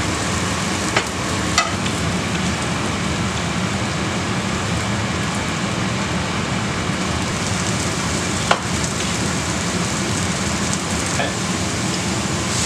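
Sliced button mushrooms frying in a nonstick pan on a gas hob: a steady sizzle, broken by a few brief sharp clicks.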